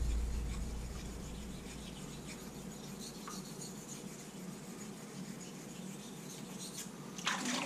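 Faint scraping of a straight razor's blade being honed on one side over a wet King combination waterstone, with a brief louder noise near the end.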